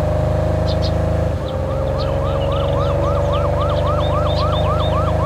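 Sports car engine running steadily at speed. About a second in, a police car siren joins in a fast yelp of about four rising sweeps a second.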